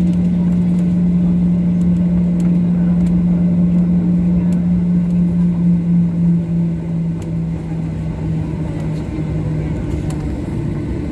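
Cabin noise inside a Boeing 737-800: steady jet-engine rumble with a low hum that wavers, sinks slightly in pitch and fades out about ten seconds in.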